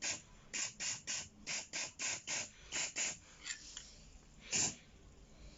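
Quick back-and-forth strokes of paint being applied to a washing machine's metal cabinet, about four a second for three seconds, with one more stroke near the end.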